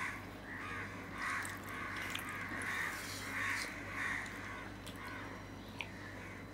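Crows cawing in a run of short calls, roughly two a second, that stops about four seconds in. A steady low hum runs underneath, and there is a single click near the end.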